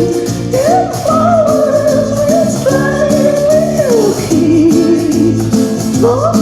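A song: a high voice holds long, wavering notes that glide up and down, over steady instrumental accompaniment.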